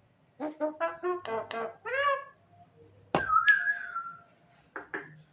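Javan myna (jalak kebo) calling: a quick run of about eight short notes, then about three seconds in a sharp note that goes into a long whistle held for about a second, and two short notes near the end.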